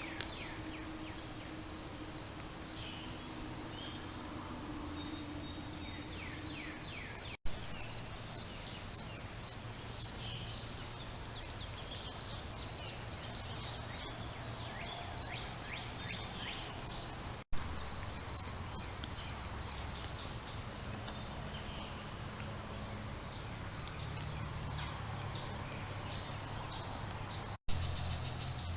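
Crickets chirping in a steady, even rhythm of about three high chirps a second, with a few bird calls in the first seconds.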